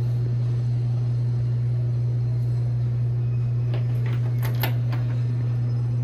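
A steady low hum, with a few light clicks about four to five seconds in.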